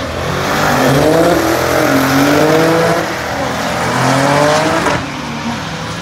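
A supercharged Jeep Grand Cherokee Trackhawk V8 and a Porsche 911 at full throttle down a drag strip, engine pitch climbing and dropping back at each upshift. The engines grow quieter about five seconds in as the cars pull away.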